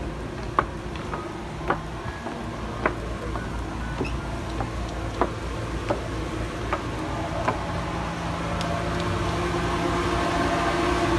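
Footsteps on a wet wooden dock, sharp taps about once a second. Under them runs a steady mechanical hum from the moored boats, which grows louder near the end as the walkers reach the yacht's boarding steps.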